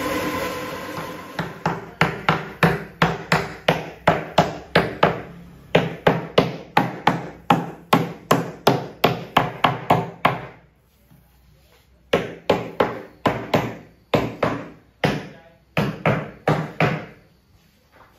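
Hammer blows on the wooden panels of a speaker cabinet under assembly, in steady runs of about three strikes a second, with a short pause about ten seconds in. A machine's steady running sound fades out over the first two seconds.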